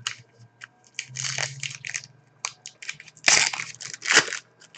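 Wrapper of a trading card pack crinkling and tearing in fits and starts as it is pulled open, with louder rips about a second in, around three seconds and just after four seconds; the pack is hard to get open.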